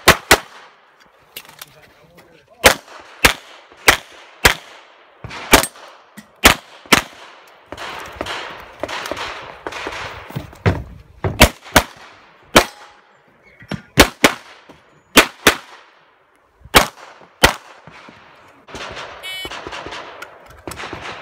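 Handgun shots fired in a practical pistol match, in short strings of shots about half a second apart with pauses of a few seconds between strings.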